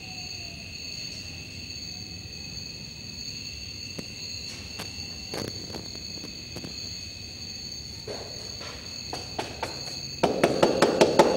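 Crickets chirping steadily, with a few isolated knocks. About ten seconds in comes a burst of rapid, loud knocking on a door.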